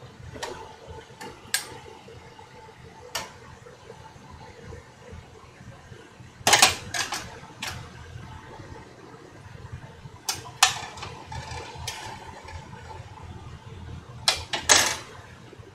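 A cooking utensil clattering and knocking against a pot in several short clusters as a whole chicken is turned over in it, over a steady low hum.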